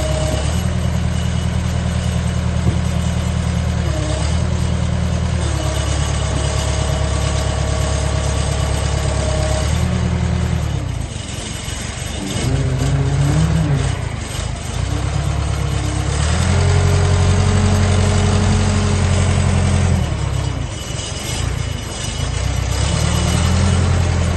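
JCB 3CX Project 7 backhoe's four-cylinder diesel engine running. It runs steadily for about ten seconds, then its speed dips and rises several times, loudest for a few seconds past the middle.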